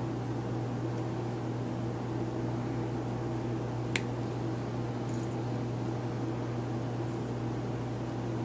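Steady low mechanical hum in the room, with one small sharp click about four seconds in as needle-nose pliers crimp a stainless steel wire onto steel mesh.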